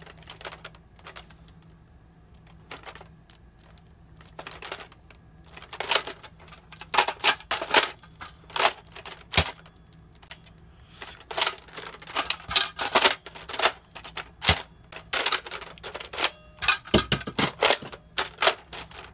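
Plastic clicks and clacks of an Air Warriors Exterminator foam dart blaster, a knockoff Nerf Retaliator, being handled and reloaded. The clicks are scattered at first, then come in quick runs from about six seconds in.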